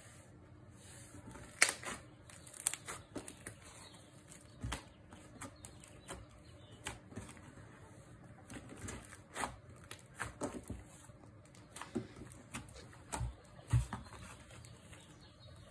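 Thick memory dough slime being stretched, folded and pressed by hand on a tabletop, giving irregular sticky pops and clicks.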